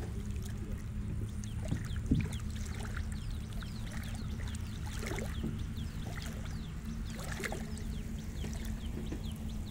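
Small birds chirping faintly and often over a steady low rumble, with a few soft knocks.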